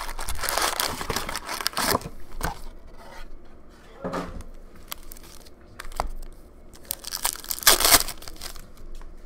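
Cardboard box of Upper Deck hockey cards being torn open, then foil card packs rustling as they are handled. A foil pack wrapper is ripped open with a loud crinkling tear near the end.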